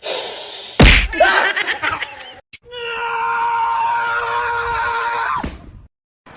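A sharp thud about a second in, then a loud, long scream-like cry held at one steady pitch for nearly three seconds, which cuts off sharply.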